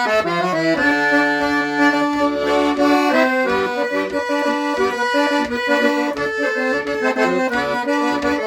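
Accordion (gaita) playing an instrumental break in a gaúcho folk song: a melody line over held chords and bass notes, with no singing.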